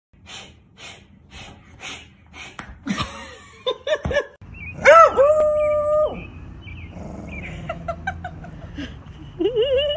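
A dog vocalising: short yelps, then a loud held howl-like note about halfway through, and wavering, rising whines near the end. Soft, evenly spaced rustling strokes, about two a second, come first.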